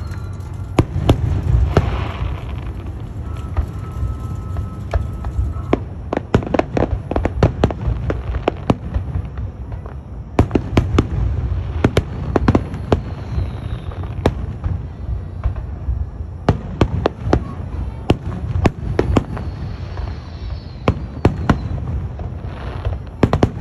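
Aerial fireworks display: shells bursting one after another in a rapid string of sharp bangs and crackles over a continuous low booming.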